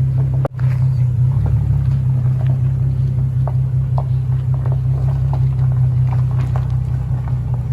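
Nissan 370Z Nismo's 3.7-litre V6 idling steadily through a newly fitted Greddy Evolution GT exhaust, a loud, deep drone. The sound drops out for an instant about half a second in.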